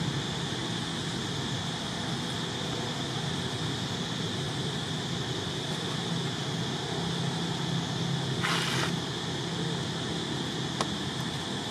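Steady outdoor background noise: a constant hiss with a high band of sound and a low hum, with no clear single source. A short scratchy rustle comes about eight and a half seconds in.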